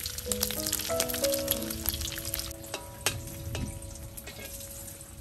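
Pieces of pork sizzling in hot oil in a wok, with irregular crackling spits that are densest in the first couple of seconds. Soft background music plays along.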